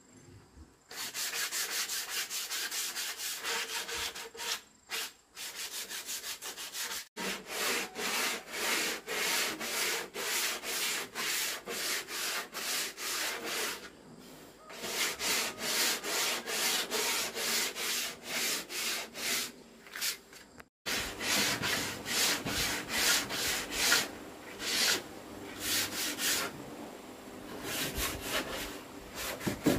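Wooden planks of a box being sanded by hand with sandpaper: quick back-and-forth strokes, about two a second, with a few short breaks.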